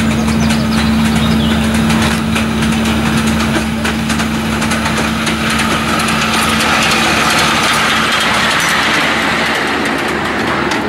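Miniature passenger-carrying steam locomotive running toward and past on its small track, its steam hiss swelling as it draws close near the end, with light clicks from the wheels and track. A steady low drone runs underneath throughout.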